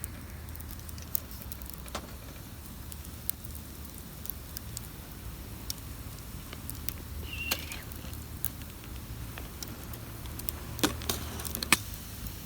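Campfire crackling in a fire stand: scattered sharp pops and clicks at irregular intervals, the loudest near the end, over a steady low rumble.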